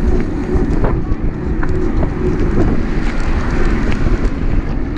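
Wind buffeting the microphone of a camera on a moving bicycle: a loud, steady, fluttering low rumble, mixed with the hum of tyres on asphalt.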